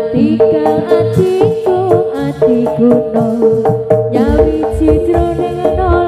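Live jaranan ensemble music: kendang hand drums beating a quick, steady pattern under a wavering, ornamented melody and a steady held note, with deeper drum strokes growing heavier about four seconds in.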